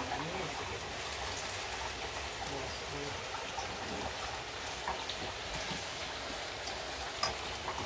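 Chicken frying in a pan with butter and umeboshi: a steady sizzling hiss with scattered small crackles.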